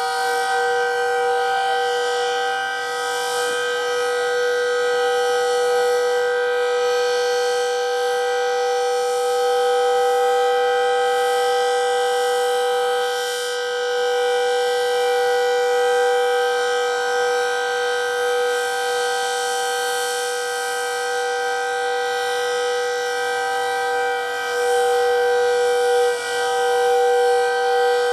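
Decot Red Arrow Model 12 outdoor warning siren sounding its full alert at full speed: a loud, steady chord of several tones held at a constant pitch, swelling and easing slightly in loudness.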